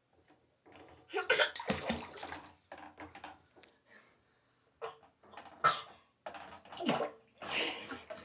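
Water splashing in a bathtub in a series of bursts: a loud run of splashing about a second in, then several shorter splashes.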